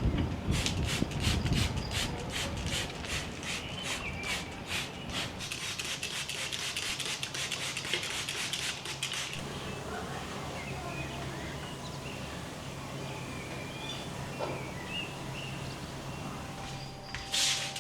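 Rapid rhythmic rubbing strokes, a little under three a second at first and then quicker, stopping about nine seconds in, over a low steady hum.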